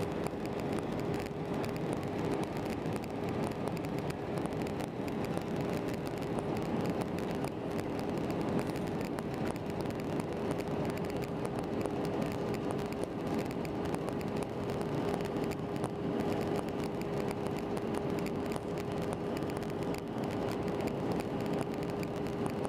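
Steady cabin noise of an Airbus A320 in flight on descent, heard from a window seat over the wing: an even rush of engine and airflow noise with a steady mid-pitched hum running through it.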